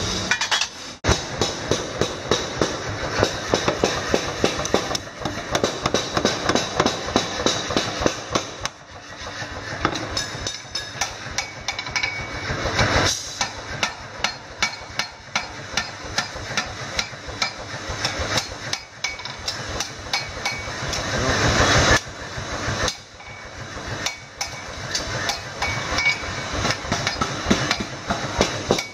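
Hand hammer striking a parang (machete) blade on a steel anvil, blow after blow at several strikes a second, with a metallic ring. The hammering pauses briefly a few times.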